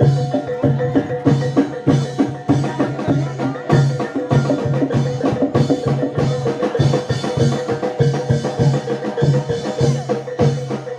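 Live gamelan-style accompaniment for a Reog (Jaran Dor) dance: hand drums and tuned metal percussion playing a fast, driving rhythm over a repeating low gong-like tone, with a steady higher pitched tone held above.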